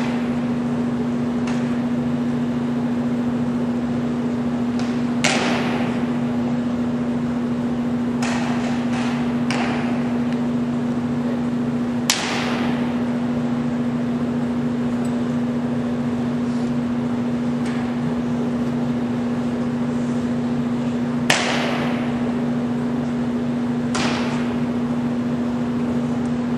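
Drill stamps and rifle knocks from a cadet flag party with arms: about half a dozen sharp, irregularly spaced impacts, each ringing on in the echo of a large hall, over a constant electrical-sounding hum.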